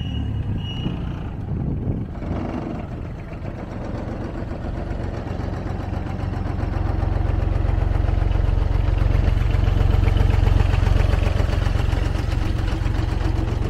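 Diesel engine of a Thwaites 1-tonne hi-tip site dumper running as the machine drives, with evenly pulsed warning-alarm beeps that stop about a second in. The engine grows louder from about six seconds in as it passes close by.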